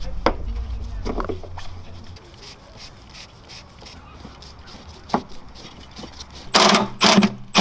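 A small metal tool scraping and ticking against the rusty fuel filler neck behind the fuel door: a run of light scrapes and clicks. Near the end come two louder noisy bursts.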